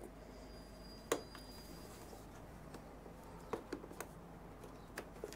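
Small sharp clicks and taps of plastic pop rivets and trim being worked loose by hand: one louder click about a second in, a cluster of lighter ticks around three and a half to four seconds, and two more near the end.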